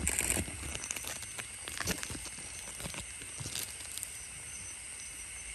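Night ambience of steady high-pitched insect chirring, with a louder pulse of it at the start and a few faint scattered clicks.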